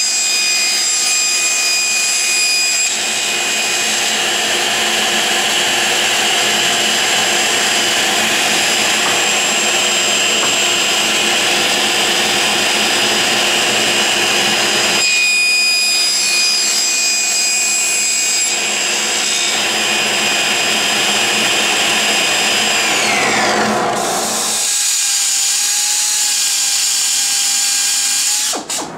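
Table saw running and cutting through plywood sheet, a steady high blade-and-motor whine under the cutting noise. About two-thirds of the way in the whine falls in pitch as the blade spins down, and a different steady motor hum takes over for the last few seconds.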